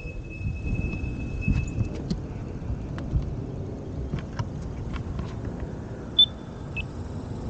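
A pedestrian crosswalk push button is pressed about six seconds in and answers with a short electronic beep, then a second brief tone; this is the loudest sound. Low wind rumble on the microphone and a few light handling clicks run under it.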